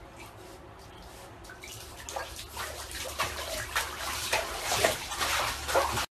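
Bath water sloshing and splashing as a Shiba Inu shifts about in a shallow bathtub. It is faint at first, then irregular splashes grow louder from about two seconds in, and the sound stops abruptly near the end.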